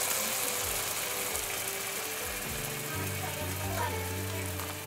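Minced-beef kebabs on wooden skewers frying in hot oil in a pan: a steady sizzling hiss that eases slightly towards the end, with background music over it.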